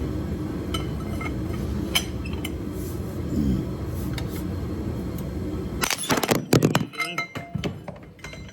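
Metal clinks of hand tools on the engine, a few sharp ticks at first, then a quick run of loud clanks and rattles about six seconds in, over a steady low rumble.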